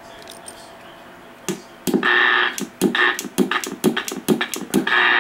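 CB base station's speaker hiss with a steady whine, cutting in and out with sharp clicks as the four-pin microphone plug is worked into its jack, then holding steady near the end.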